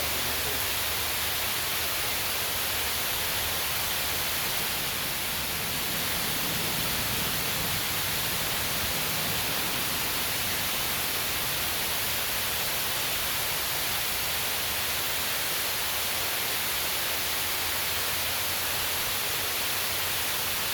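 Steady rain falling on water, a dense, even hiss that does not let up.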